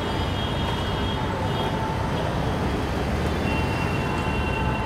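Steady road traffic at a busy junction: a low, continuous rumble of engines from a fire engine, motorcycles and auto rickshaws moving off. Faint high tones come and go over it.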